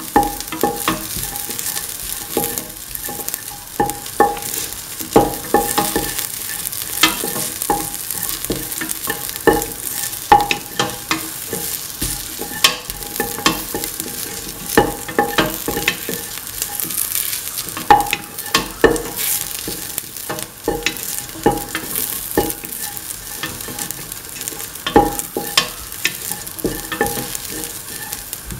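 Diced onion and shallots with fennel seeds sizzling in oil in a stainless steel pan, while a spatula stirs them with frequent sharp clicks and scrapes against the metal.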